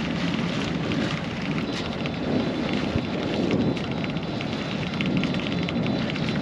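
Wind rumbling and crackling on the microphone, over the low, steady running of a sailboat's engine as it motors slowly.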